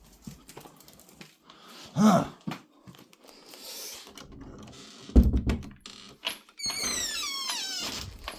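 Indoor handling noises: scattered clicks and knocks, a heavy thump about five seconds in, then a mechanism whirring in a run of quick falling sweeps near the end.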